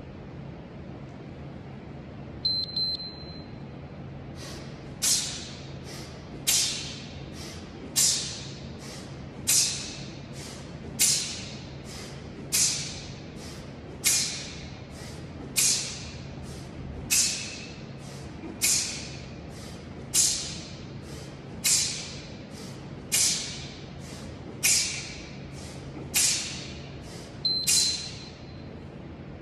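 A workout interval timer beeps once about two seconds in. Then a man doing one-arm kettlebell swings gives a sharp, hissing exhale with each swing, about every second and a half, some sixteen times. The timer beeps again near the end, twenty-five seconds after the first beep, marking the end of the work period.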